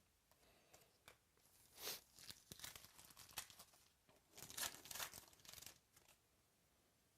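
A trading card pack wrapper being torn open and crinkled, in two bursts of tearing and crackling about two seconds apart.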